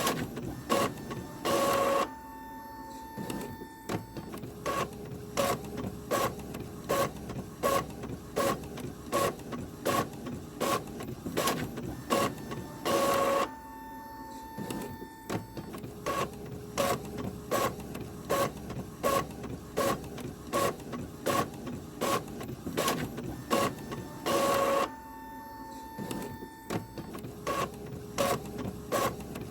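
Printer running through a repeating print cycle: about two sharp mechanical strokes a second, with a longer, louder burst three times, about every eleven seconds, each followed by a brief steady whine.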